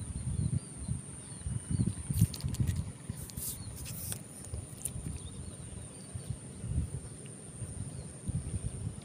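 Close handling noise as a small fish is unhooked by hand: low rumbling knocks and rubbing on the microphone, with a short run of sharp clicks and rustles in the middle. A steady thin high whine runs underneath.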